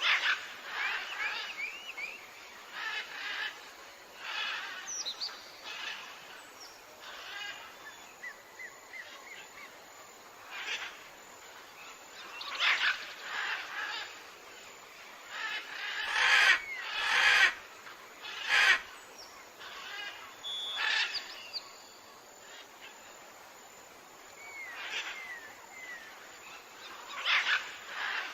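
Tropical forest birds calling: a mix of chirps, short gliding whistles and harsher calls, irregularly spaced, with a run of louder calls a little past halfway.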